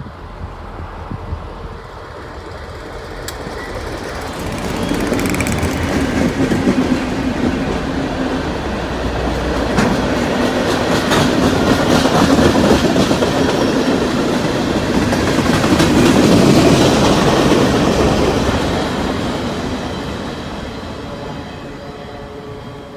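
Diesel-hauled herbicide sprayer train of tank cars and boxcars passing close by. The locomotive's rumble builds as it approaches, then the wheels clatter and click over the rails as the cars go by, fading as the train moves away near the end.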